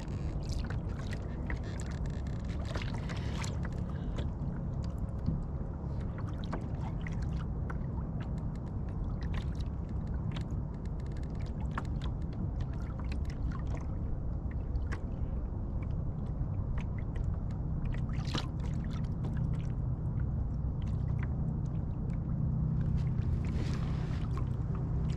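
Small boat under way across open water: a steady low motor hum, with water splashing and ticking against the hull.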